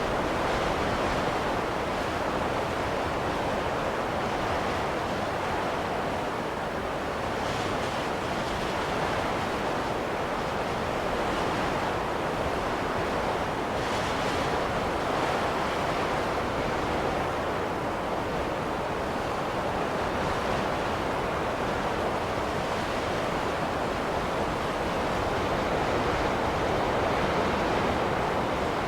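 Winter storm wind blowing steadily, an even rushing noise with the hiss swelling briefly about a quarter and again halfway through.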